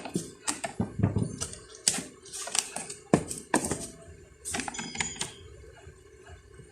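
Irregular clicks and knocks of a pair of Nike Kyrie sneakers and their box being handled and set down, about a dozen over the first five seconds, then dying away.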